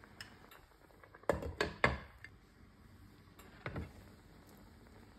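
A glass lid knocking against a frying pan: three quick sharp clinks about a second in, then one softer clunk near the end.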